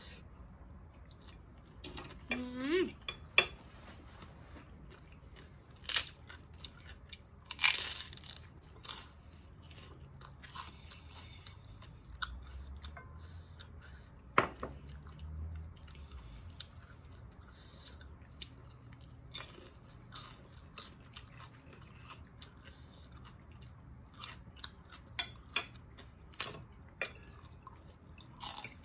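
A person eating close to the microphone: chewing and crunching through spicy cucumber salad and puffed pork rinds, with scattered sharp crunches, a few of them loud, and one longer crunch about eight seconds in.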